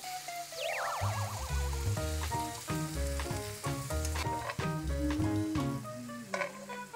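Octopus and wide pasta noodles sizzling as they are stir-fried in a frying pan, under background music with a steady bass beat. A wobbling, falling sound effect comes about half a second in.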